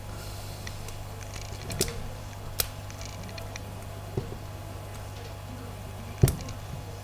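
Single-pin picking of a shutter padlock with a short hook: four sharp little metallic clicks spread over several seconds, the last the loudest, over a steady low hum.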